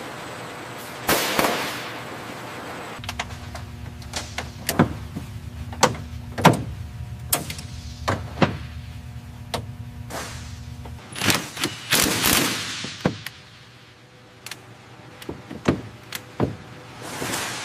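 Factory machinery and tool sounds: sharp mechanical clicks and clanks, some with a short ring, over a steady low machine hum through the middle. Whooshes come about a second in, around twelve seconds in, and near the end.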